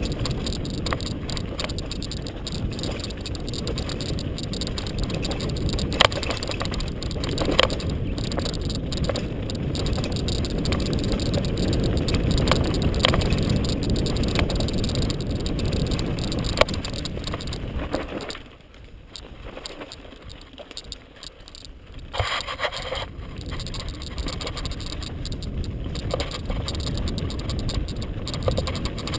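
Mountain bike descending a dirt singletrack, heard from a helmet-mounted camera: wind rushing over the microphone, with the tyres on dirt and the bike rattling. There are a few sharp knocks from bumps, and the rush drops away for a few seconds about two-thirds of the way through.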